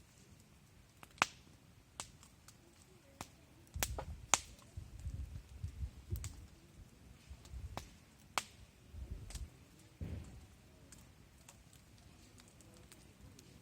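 Wood fire crackling, with sharp irregular pops from the burning wood and a low rumble through the middle.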